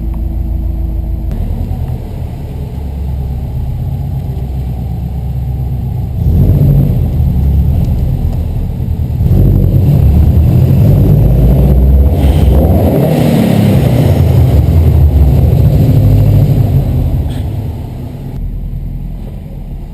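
Subaru Impreza WRX's turbocharged flat-four engine running while driving. It gets louder about six seconds in and louder again from about nine seconds to seventeen seconds, then eases off near the end.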